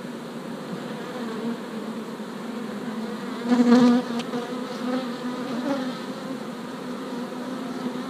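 Honeybees buzzing around an open hive in a steady hum. About three and a half seconds in, one bee briefly buzzes louder and closer.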